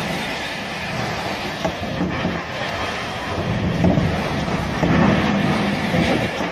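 Hurricane Irma's wind blowing hard and buffeting the microphone as a steady rushing rumble, growing louder in gusts from about four seconds in.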